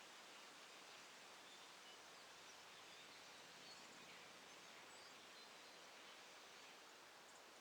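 Near silence: faint steady outdoor background hiss, with a few faint, short, high chirps.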